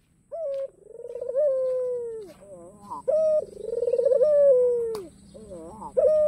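White black-collared turtle dove (puter, the domestic ringed turtle dove) cooing. It gives two full coo phrases, each a short note, then a long rolling coo that slowly falls in pitch, then softer wavering notes. A third phrase begins near the end.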